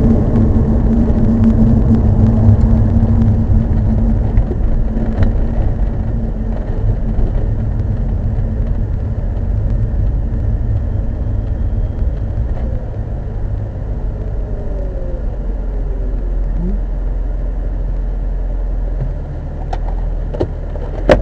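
A car driving, with a steady low engine and road rumble. The engine note eases off after the first few seconds, and there are a few sharp clicks near the end.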